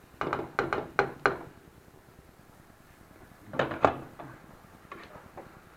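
Spatula scraping and knocking against a frying pan as onions are stirred, a handful of quick strokes in the first second and a half. About three and a half seconds in, a glass pan lid is lifted off and handled with a clatter, followed by a few lighter knocks.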